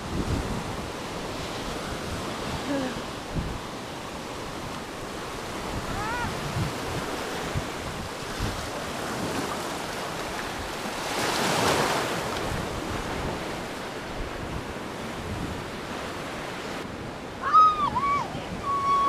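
Sea surf washing onto a sandy shore, with wind buffeting the microphone; the wash swells louder once about two-thirds of the way through. Children's voices call out briefly near the end.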